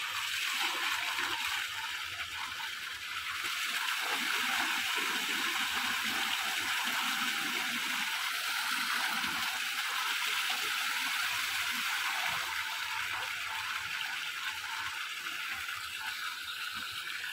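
Spring water pouring from a pipe outlet into a brick basin in a steady rush, with irregular splashing as hands scoop the water to the face.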